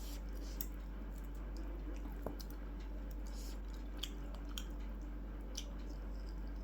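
A person chewing food, with faint wet mouth clicks now and then over a steady low hum.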